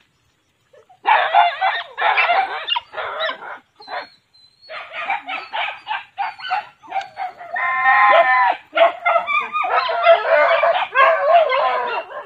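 Several dogs barking and yipping in a rapid string of short calls, starting about a second in, with a brief pause near four seconds and one longer held note a little past the middle.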